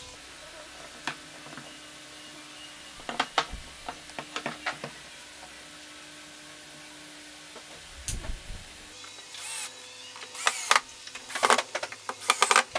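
Cordless drill-driver driving screws in several short bursts near the end. Earlier, a few clicks and knocks as the wooden rails and steel rod supports of a jig are handled and set on a wooden workbench, and one low thud.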